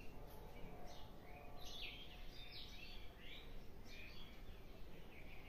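Small birds chirping faintly, several short high chirps a second, over a steady low hiss.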